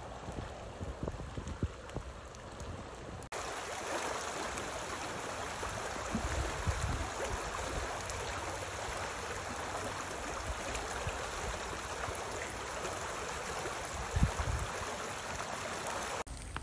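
A storm-swollen creek rushing in flood: a steady rush of water that gets louder after a cut about three seconds in. Low thumps of wind on the microphone come and go.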